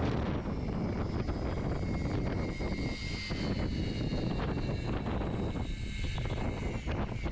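Wind buffeting the microphone over a boat engine's steady drone, with faint high whining tones that slowly fall in pitch.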